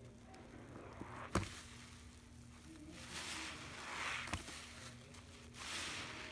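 A soaked sponge squeezed and wrung by hand in a tub of foamy pine-cleaner water: wet squelching and the hiss of liquid and foam running out, swelling twice with the squeezes. A sharp knock about a second and a half in is the loudest sound.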